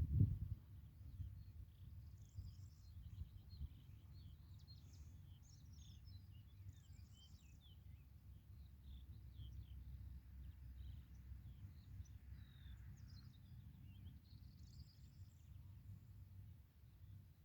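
Several small birds chirping and singing in quick, varied phrases over a low rumble, with a low thump at the very start.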